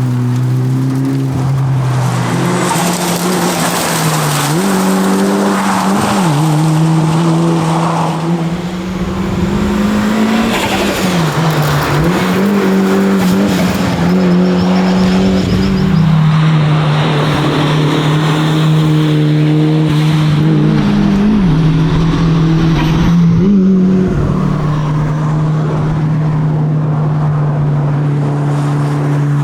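Mitsubishi Lancer Evolution VIII's turbocharged four-cylinder engine driven hard, its pitch climbing and dropping again and again with gear changes and lifts, then holding at a steady pitch for the last dozen seconds or so.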